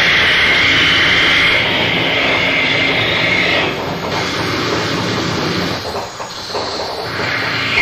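Harsh noise music: a dense, loud wall of amplified static and hiss. The bright upper hiss drops away about halfway through, and the sound thins briefly before swelling back to full strength at the end.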